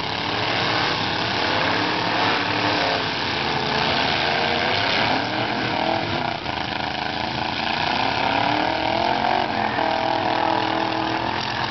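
Several demolition-derby pickup trucks' engines revving hard together, their pitches rising and falling and overlapping over a dense wash of noise.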